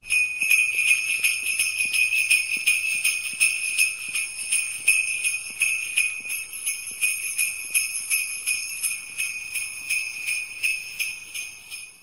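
Jingle bells (sleigh bells) shaken in a quick, even rhythm, ringing brightly and slowly fading away toward the end.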